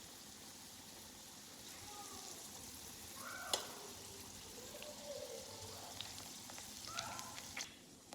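Breaded chicken tenders frying in hot chicken fat (schmaltz) in a fry pan: a steady sizzle, with one sharp click about three and a half seconds in. The sizzle cuts off suddenly near the end.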